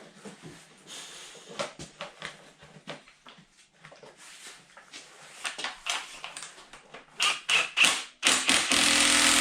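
Impact driver running a bolt down: a few short bursts about seven seconds in, then one steady run of about a second and a half near the end. Before that, light clicks and knocks from parts being handled.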